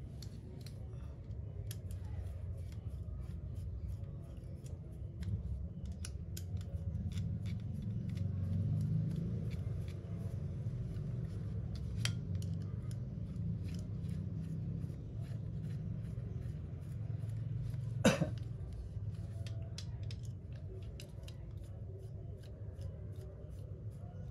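Small metallic clicks and scrapes of a screwdriver on the screws of a Yamaha Y125 carburetor as it is being screwed back together, with one sharp click about three quarters of the way through. A steady low hum runs underneath.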